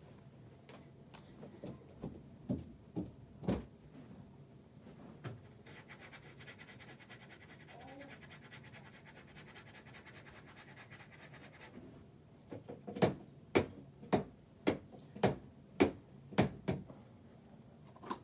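A few scattered knocks, then a steady buzz for about six seconds, then a quick run of about ten sharp knocks.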